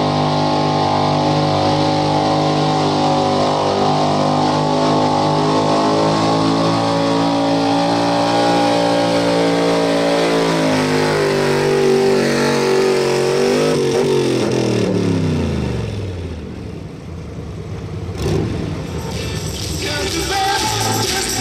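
Ford pickup's pulling engine at full throttle, hauling a pulling sled with a loud, nearly steady pitch for about ten seconds, then the revs fall away as the pull ends. There is a sharp knock near the end.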